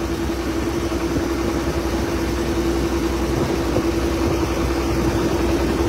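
A passenger boat's engine running steadily, heard from on board, with a constant hum over a low rumble.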